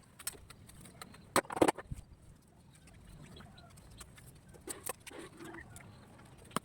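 Several sharp clicks and snaps from work on a ficus bonsai's branches: a pair about a second and a half in, a few more near the middle, and one near the end. Chickens cluck in the background.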